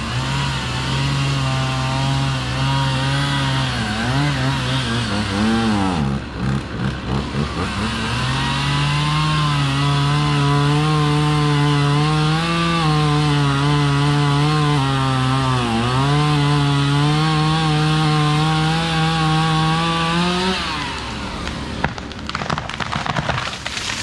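Chainsaw running hard and cutting wood, its engine note sagging under load and recovering twice, then dropping away about twenty seconds in.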